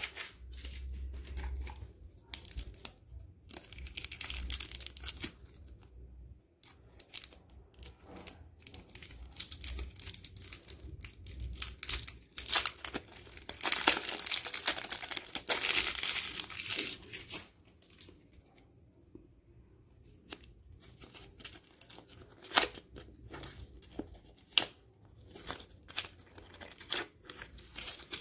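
Chocolate bar wrappers torn open and crinkled by hand, a KitKat's plastic wrapper and inner foil among them, in irregular bursts of crackling and tearing. It is loudest in a long stretch about halfway through, followed by a brief lull and then scattered crinkles as foil is peeled off another bar.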